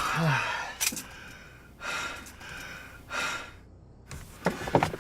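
A man lets out a short falling groan, then heaves two long, heavy sighs of frustration. A few sharp clicks come near the end.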